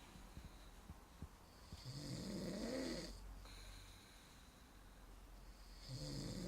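A man snoring in his sleep: two long, rough snores about four seconds apart, the second starting near the end.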